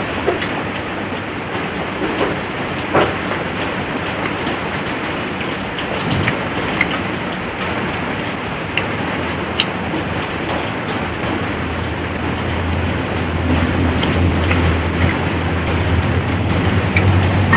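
Wet chewing, smacking and scattered clicks of a man eating squid, rice and sambal with his hands, over a steady loud hiss. A low hum comes in about twelve seconds in and grows louder toward the end.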